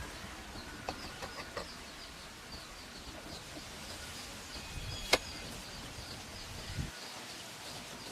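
Outdoor ambience: a high, faint chirp repeating evenly over a low rumble, with a few light clicks and one sharp click about five seconds in.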